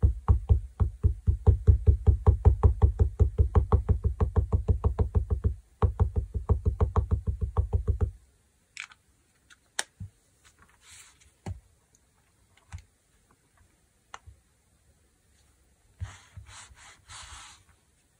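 A rubber stamp and a black ink pad dabbed together rapidly, about six light thuds a second, inking the stamp, with a short pause partway through. A few single knocks follow, then a brief rustle of fabric.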